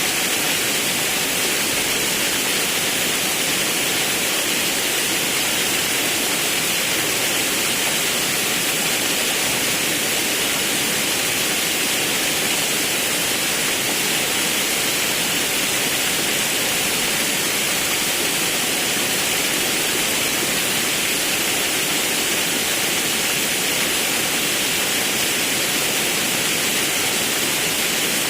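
Forest river and waterfall: a steady, even rush of falling and flowing water, unchanging throughout, with a strong hiss.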